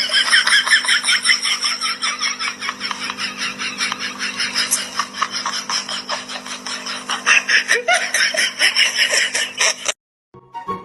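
Hearty, unbroken laughter in fast, high-pitched pulses over a steady low hum. It cuts off abruptly near the end.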